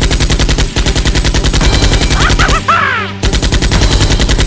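Automatic-gunfire sound effect: a rapid, even stream of shots in long bursts, dubbed over toy blasters, with short breaks about a second in and just before three seconds. A few shouts or screams come through around two and a half seconds in.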